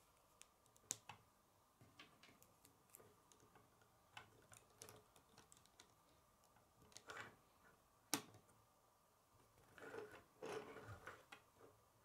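Faint, scattered clicks of plastic K'nex rods and connectors being handled and snapped together, with two sharper snaps, one about a second in and one about eight seconds in, and a short spell of rattling plastic near the end.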